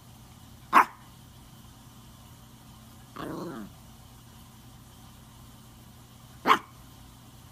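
Maltese puppy giving two sharp single barks, one near the start and one near the end, wanting the ball thrown for fetch. A quieter, shorter sound falling in pitch comes between them.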